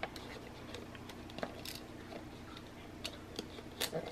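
Faint scattered clicks and light paper scraping as a craft knife slits the tape and wrapping paper on a gift, with a few sharper ticks near the middle and toward the end.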